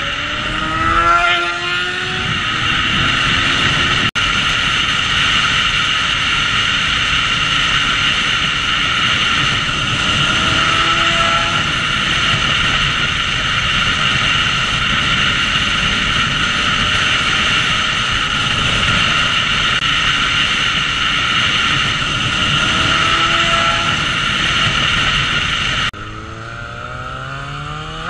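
Motorcycle ride heard from a helmet camera: a steady rush of wind and engine noise, with the engine revving up in rising sweeps a few times. Near the end the wind rush suddenly drops and rising engine notes of other sport bikes coming by take over.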